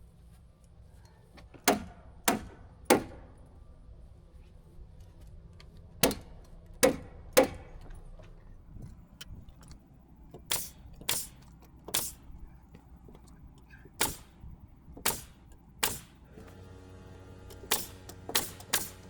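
Fasteners being driven into the shed's wall with sharp, single strikes, about fifteen in all, in groups of three a few seconds apart.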